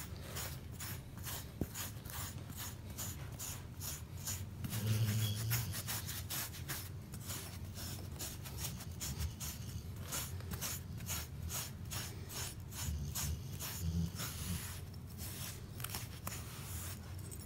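Grill-cleaning brick scraping through a short-haired dog's coat to pull out the dead undercoat, in quick repeated rasping strokes, about two or three a second, with a low rumble underneath.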